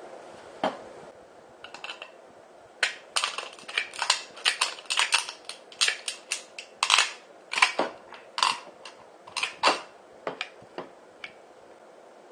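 A steel food can being cut: a long run of sharp, irregular crunching snips of thin sheet metal. The snips are densest in the middle and stop about a second before the end.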